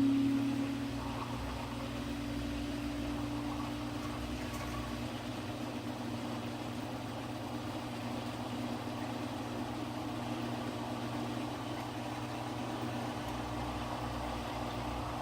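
Samsung washing machine running its rinse and spin cycle: a steady motor and drum hum that eases off a little in the first second, with no knocking or banging.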